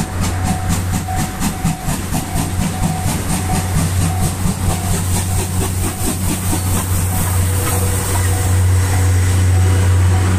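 Steam locomotive passing close at low speed, its exhaust beating in a quick, even rhythm that fades out about halfway through, over a steady low rumble. Near the end the rolling noise of the coaches swells as they go by.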